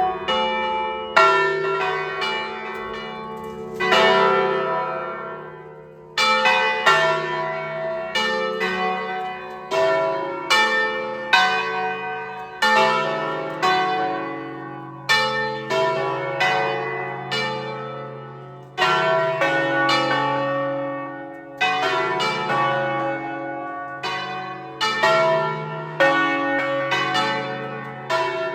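Several church bells of Turin Cathedral ringing for noon. Bells of different pitches are struck in an irregular, overlapping sequence, about one to three strikes a second, each stroke ringing on and dying away under the next.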